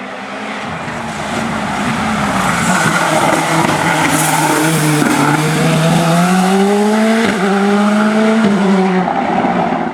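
Hillclimb race car engine passing close. Its note drops as the car slows into a corner, with a brief tyre squeal, then rises again as it accelerates away, with two sharp gear changes near the end.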